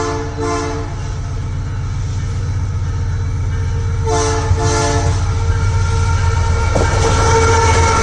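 Diesel-electric freight locomotive approaching and drawing level, sounding its multi-tone horn in short blasts: one at the start and two more about four seconds in. Beneath the horn, a low engine drone grows steadily louder as the locomotive nears, and a higher steady whine joins near the end as it passes close.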